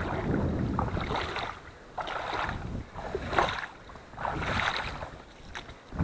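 Water splashing and sloshing in repeated swells, about once a second.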